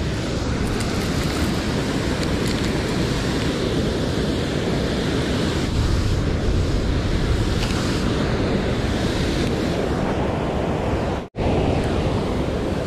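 Steady rushing noise of moving water, with wind buffeting the microphone. It drops out for an instant near the end.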